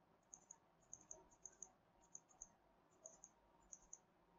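Faint computer mouse clicks, coming in quick pairs about six times, as lines are picked and offset one after another in a CAD drawing.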